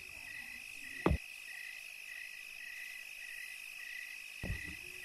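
Night ambience of crickets chirping in a steady pulsing trill, with a sharp thump about a second in and a softer one near the end.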